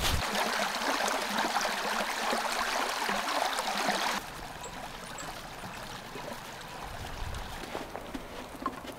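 River water flowing, an even rushing hiss that drops abruptly to a quieter rush about four seconds in.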